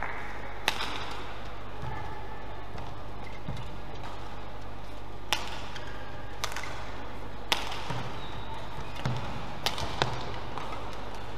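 Badminton rally: the sharp cracks of rackets striking the shuttlecock, about six or seven hits at uneven gaps of one to two seconds, with a few softer low thuds of players' footwork on the court.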